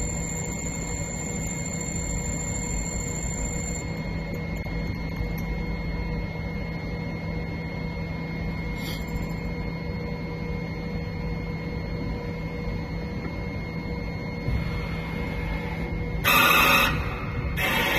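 Mini CNC lathe running: a steady motor hum with a constant high whine as a twist drill held in the gang-type tool post feeds into the spinning workpiece. Near the end, two short, louder buzzing bursts come as the slide moves to bring the next tool to the work.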